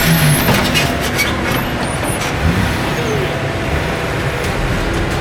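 Off-road 4x4 vehicle engine running steadily, with faint voices in the background.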